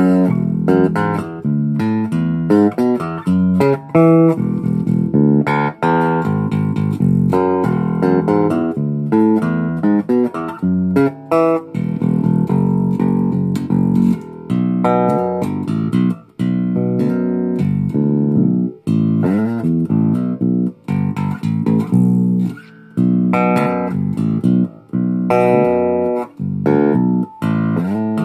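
Electric bass guitar played fingerstyle on its bridge pickup alone: a steady run of plucked notes and riffs with a few short breaks.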